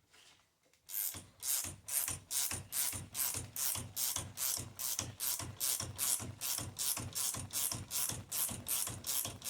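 19 mm GearWrench ratcheting wrench winding down the threaded rod of a coil-spring compressor on a MacPherson strut, compressing the spring to take its pressure off the strut's top nut. Steady, even ratchet strokes, a little over two a second, start about a second in.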